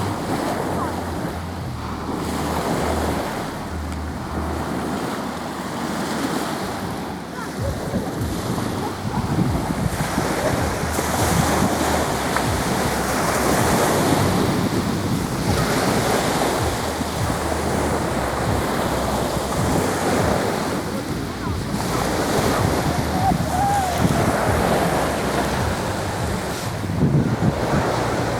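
Sea waves washing and breaking, with wind buffeting the microphone.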